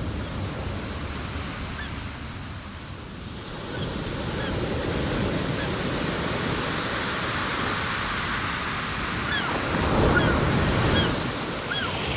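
Ocean waves washing with a steady wind hiss, getting louder about four seconds in and swelling briefly near the end. Short high bird cries come in now and then from about two seconds in, more often toward the end.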